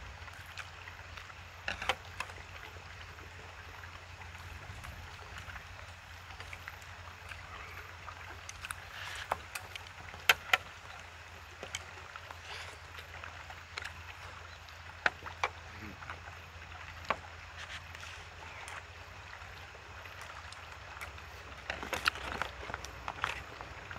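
Eating sounds: irregular sharp clicks of chopsticks and spoons against plastic takeout containers, with chewing, over a steady low rumble.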